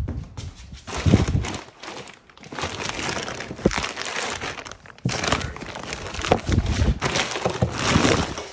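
Silver reflective padded board bag crinkling and rustling loudly as it is handled, in several stretches with short pauses between and a few knocks from the board being moved.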